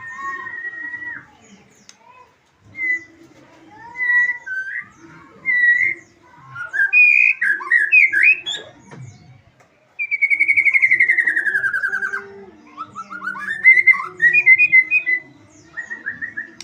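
White-rumped shama singing: a string of clear whistled phrases with short pauses between them, then a long rapid trill that falls in pitch about ten seconds in, followed by a burst of quick high notes.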